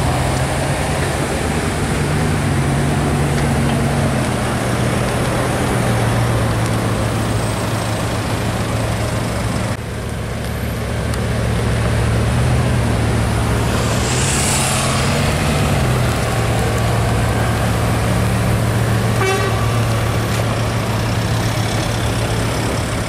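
Bugatti Veyron's quad-turbo W16 engine running at low speed in slow traffic, a steady low drone that rises briefly twice, with a short hiss on the second rise.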